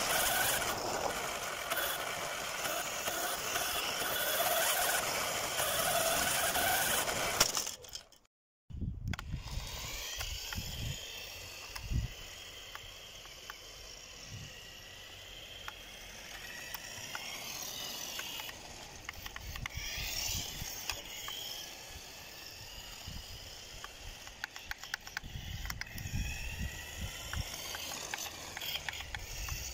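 Vintage electric RC cars running: a loud whine from the motors and gears that wavers with the throttle, cut off abruptly about eight seconds in. After the cut comes a fainter whine that rises and falls as a car speeds up and slows, with scattered sharp clicks and a few low thumps.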